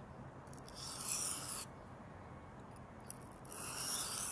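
Steel blade of a thin, very hard (about 67 Rockwell) CPM 10V hunting knife stroked across a wet sharpening stone: two scraping strokes about a second long each, one near the start and one near the end, knocking off the shoulder of the edge bevel.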